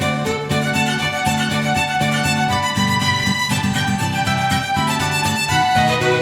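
Background music: a steady instrumental track with a violin-like melody over a repeating low accompaniment.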